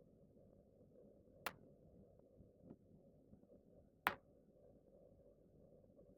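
Neck joints cracking during a self-adjustment: sharp, separate pops with a fainter click between them, the loudest about four seconds in and another right at the end.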